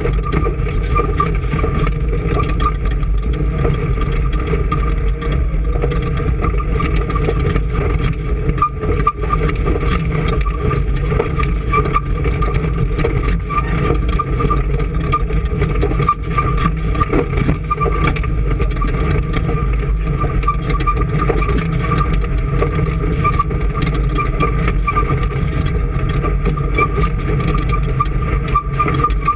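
An engine running steadily at a constant speed, with a steady high whine over its low rumble.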